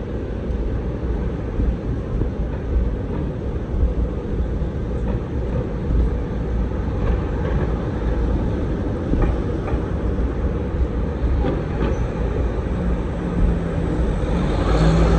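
Steady, heavy low rumble of Manhattan street noise, with faint scattered clicks and knocks above it; it swells slightly near the end.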